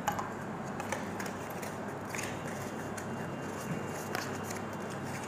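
Faint handling of a smartwatch box: a few light clicks and rustles from the packaging over steady room hiss.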